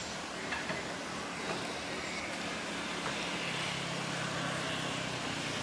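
Diesel train pulling away, its engine running steadily, with a low hum coming through more clearly from about three seconds in.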